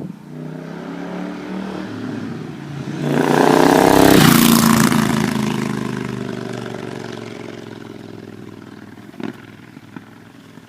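Triumph Nightstorm's parallel-twin on British Customs Hog Slayer exhausts as the motorcycle accelerates past. Its pitch rises as it approaches, it is loudest about four seconds in as the pitch drops, then it fades away.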